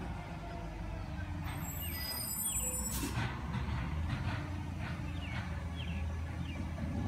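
Recycling truck engine running at low speed, a steady low rumble, with a brief air-brake hiss about three seconds in.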